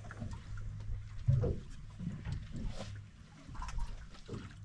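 Deck sounds on a small boat while anglers reel in. A low steady hum runs under scattered light clicks and knocks, with one heavy thump about a second and a half in.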